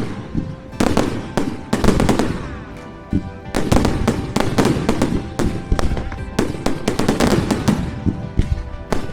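Fireworks display: several loud bangs from aerial shells in the first few seconds, then from about three and a half seconds in a dense, rapid run of crackling bursts. Music plays faintly underneath.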